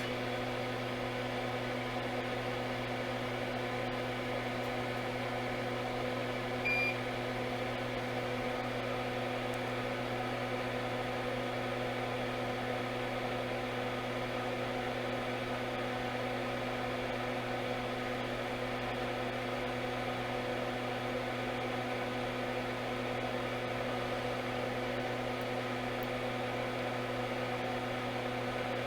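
Steady electrical hum of running bench equipment, with one short high beep about seven seconds in.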